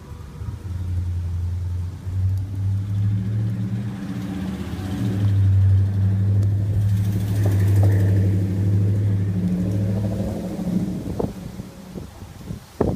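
A long, low rumble that swells to its loudest about six to eight seconds in and dies away after about ten seconds, followed by a few sharp knocks near the end.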